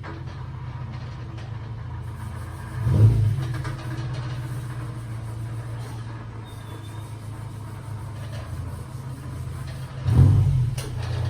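Car engine idling steadily, blipped twice with short revs, about three seconds in and again near the end.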